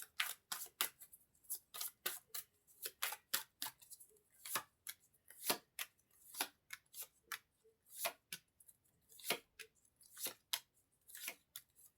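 Tarot cards being shuffled and handled: a quiet run of short, irregular, crisp flicks of card against card, a few each second.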